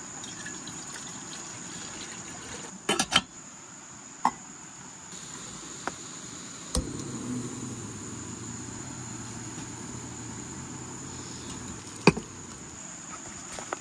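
Steady high-pitched insect chorus, with a few sharp knocks and clicks: a quick rattle about three seconds in and single knocks later on.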